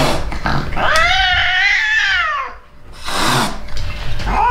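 Frightened, fractious domestic cat yowling as it is restrained and lifted from its carrier: one long drawn-out yowl that rises and then falls away. A short hiss follows, and another yowl starts near the end.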